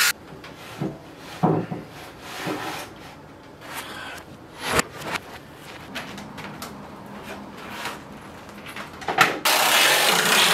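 Wooden boards and shelf parts being handled: scattered knocks, taps and scraping of wood on wood. Near the end comes a loud burst of hissing noise about a second long.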